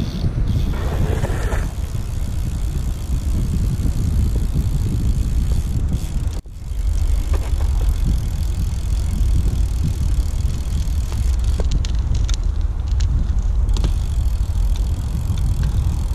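Steady low rumble of riding: wind on a moving camera's microphone, and BMX tyres rolling on asphalt. It drops out for an instant about six and a half seconds in.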